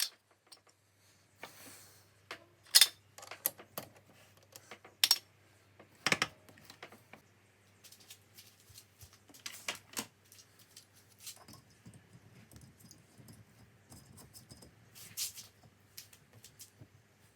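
Irregular metallic clinks and knocks of hand tools and a small steel workpiece being handled, as a thread tap and the part are shifted from the lathe to the vise. A faint steady low hum lies underneath.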